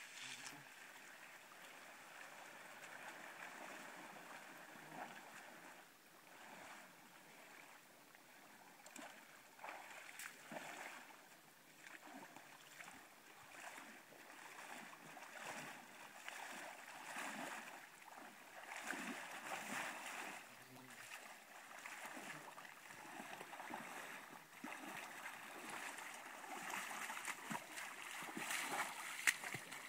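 Faint splashing of a person wading through shallow floodwater while pushing a bicycle, uneven strokes that grow louder near the end.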